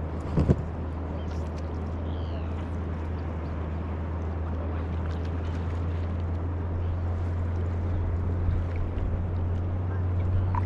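A steady low motor drone, with a short sharp knock about half a second in.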